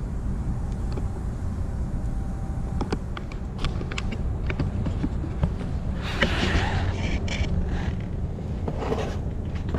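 Workshop sounds while transmission parts are handled: a steady low rumble underneath, scattered light clicks and knocks, and a louder scraping or rustling patch about six seconds in and again near the end.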